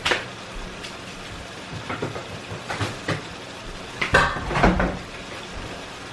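Pans and utensils clattering as they are handled: a sharp knock at the start, a few lighter clinks, then a louder cluster of clanks about four seconds in. Under them runs the steady sizzle of chicken thighs frying in hot oil in a skillet.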